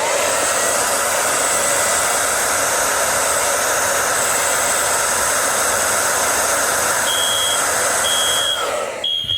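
A hot-air blower runs steadily, heating a fire alarm heat detector to trip it. About seven seconds in, the system's mini horns start sounding short high beeps about a second apart, and the blower stops shortly after.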